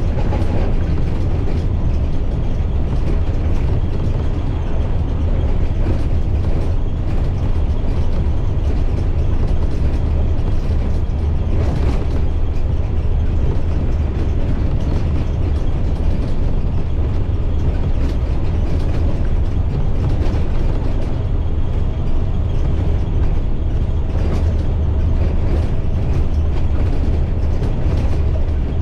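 Inside a moving school bus: the MaxxForce DT inline-six diesel runs steadily under a low drone of engine and road noise, with a brief thump about twelve seconds in.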